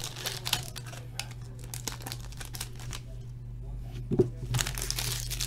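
Foil trading-card pack being torn open and its wrapper crinkled by hand, with the cards handled: a string of short crackling rustles, busiest about four seconds in, over a steady low hum.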